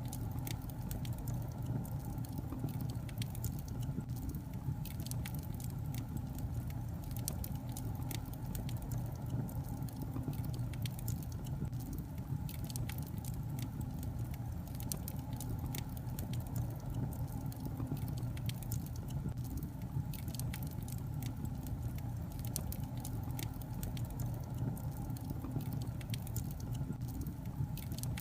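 Wood logs burning in a fireplace, crackling with many small irregular pops over a steady low rumble of the flames.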